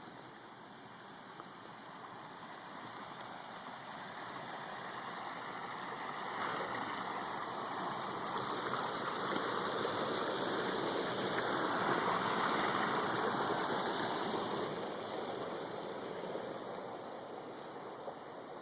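Rushing water of a creek, a steady hiss that grows louder to a peak about two-thirds of the way through and then fades again.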